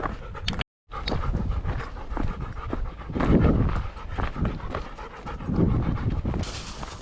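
Dog panting hard, heard close up through a camera strapped to the dog, over a low wind rumble. The sound cuts out completely for a moment just under a second in.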